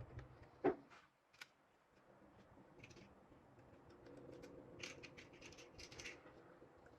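Small clicks and scratching from laptop parts being handled and fitted during a drive swap. There is a sharp click just under a second in, another shortly after, then runs of light ticking and scraping.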